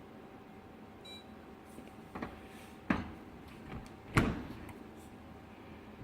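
A short electronic beep from a Whirlpool Gold series dishwasher's control panel as its wash cycle is started, followed by three sharp knocks, the last the loudest.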